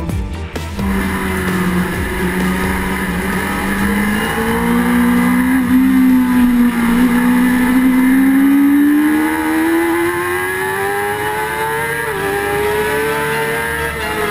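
Onboard sound of a BMW race motorcycle at speed on track: the engine note climbs slowly and steadily as the bike pulls hard, with a brief dip about twelve seconds in.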